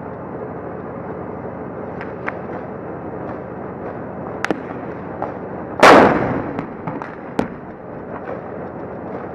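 A tank cannon fires once, about six seconds in: one very loud boom with a long fading echo. Scattered single gunshots crack before and after it, over a steady drone.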